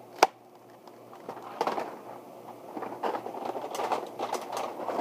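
A sharp plastic click just after the start, then a few seconds of rustling and small clatters as plastic Nerf blasters are handled and rummaged through, growing busier toward the end.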